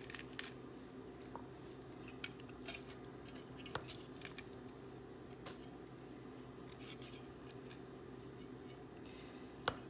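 Faint scattered clicks and light knocks of raw chicken pieces being handled in a bowl, with a sharper click near the end, over a steady low hum.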